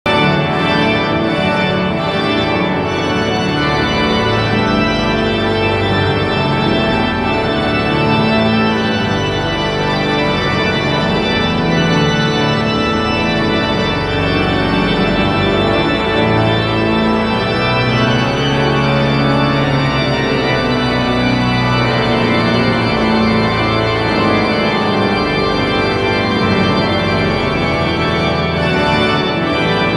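Königsberg Cathedral's large pipe organ playing, loud and steady: full sustained chords over held bass notes that change every second or two.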